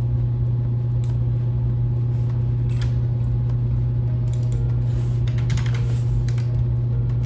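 Laptop keyboard keys clicking as code is typed: scattered keystrokes, then a quicker run from about four seconds in. A steady low hum lies under it.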